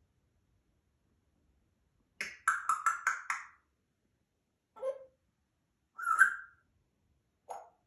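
African grey parrot calling: a quick run of about six short clicking notes about two seconds in, then three short separate calls spaced over the next few seconds, the middle one the loudest.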